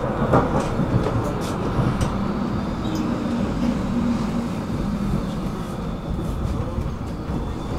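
Tram running along its track, heard from inside the passenger compartment: a steady rumble with a faint high whine and a few light clicks.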